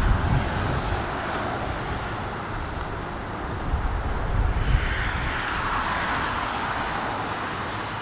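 Strong wind buffeting the microphone with a gusty low rumble, plus a broad whooshing swell that builds and fades about halfway through.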